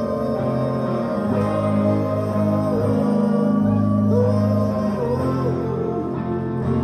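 Live rock band playing, with electric guitar and bass under a sung vocal line.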